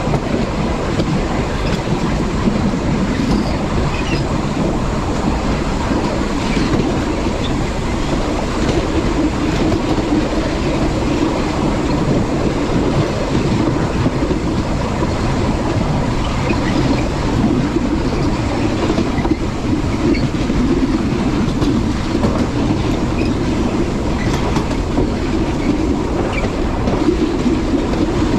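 Passenger train running along the track, heard from the driver's cab: a steady rumble of wheels on rail with scattered faint clicks.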